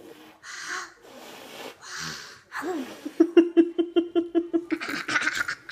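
Toddler blowing through a soap-bubble wand in a few short, breathy puffs, then a quick run of giggles lasting about a second and a half, ending in another breathy puff.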